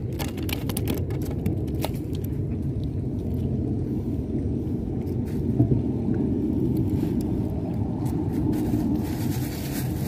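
Strong wind buffeting the microphone, a steady low rumble, with a few short clicks of handling in the first two seconds.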